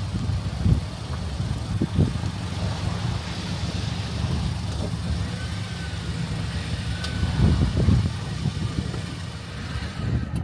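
Strong gusting wind buffeting the microphone, an uneven low rumble that swells and drops with the gusts.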